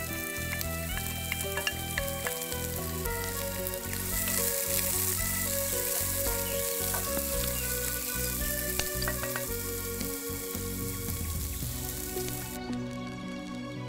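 Sliced onions sizzling as they fry in hot oil in a cast-iron kazan, with a few clicks as a wooden spatula scrapes them off a plate at the start. The sizzling grows stronger a few seconds in and cuts off suddenly near the end.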